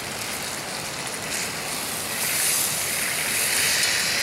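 Steak sizzling in a cast iron skillet over a propane canister stove: a steady hiss that grows louder about two seconds in.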